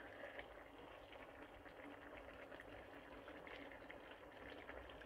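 Chicken paella simmering in a pan: a faint, steady bubbling and crackling of the broth around the rice.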